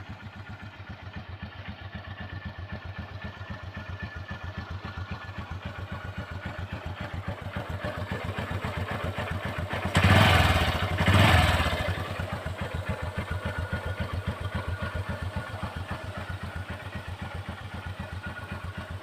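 Honda Livo's single-cylinder four-stroke motorcycle engine idling with an even exhaust putt through its stock silencer, which has no catalytic converter. About halfway through the throttle is blipped twice, each rev lasting about a second before it settles back to idle.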